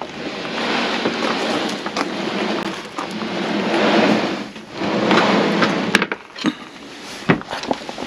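Scraping and rubbing as a large plywood electrical mounting board is handled and shifted, swelling and fading a few times, then several light knocks and clicks of the board near the end.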